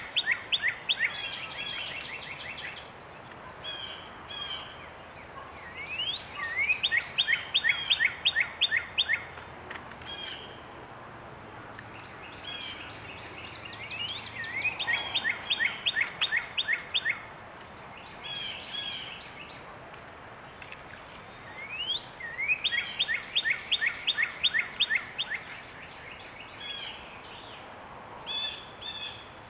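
A songbird singing a repeated phrase: a rising whistled note followed by a quick run of about eight short notes, given four times about eight seconds apart. Fainter chirps of other birds come in between.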